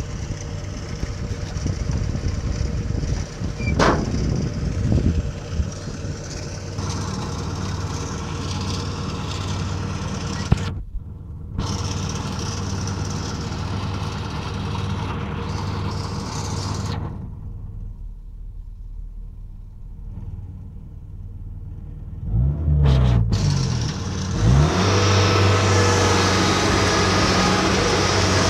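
Diesel engine of a Kubota DC60 combine harvester running steadily. About three-quarters of the way through the pitch rises and falls briefly, then the engine runs louder.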